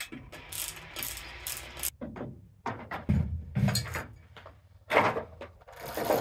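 Mechanical ratcheting, clicking and scraping in short, irregular bursts, from the hardware of a backdrop being fitted to the wall.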